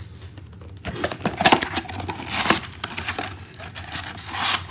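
A cardboard trading-card box being opened by hand, its plastic wrapping crinkling and the cardboard rustling in scattered crackles after a quiet first second. The loudest crackle comes about a second and a half in.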